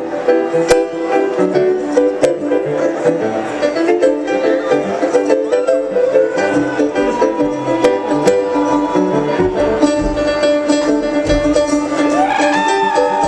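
Live acoustic bluegrass instrumental break, a banjo leading with fast picked runs over other plucked strings. A gliding, sliding tone rises about a second before the end.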